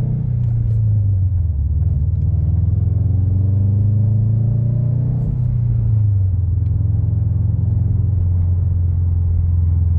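Subaru WRX STI's turbocharged flat-four engine running with road rumble as the car drives, its pitch dipping and rising over the first six seconds, then holding steady.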